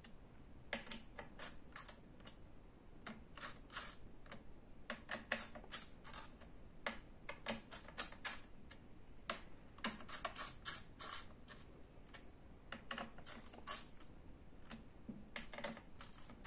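Small screwdriver working the screws of a laptop CPU heatsink, each tightened a few turns at a time: faint, irregular light clicks and ticks, often in small clusters.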